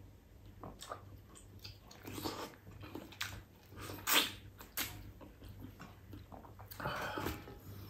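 Close-up mouth sounds of eating a ripe mango held in the hands: wet biting, sucking and chewing of the soft flesh off the skin, in irregular bursts, the loudest about four seconds in.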